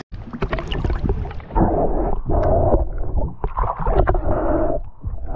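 Water sloshing and gurgling around a camera dipped below the sea surface, heard muffled as from underwater, in several loud surges with small clicks and bubble pops.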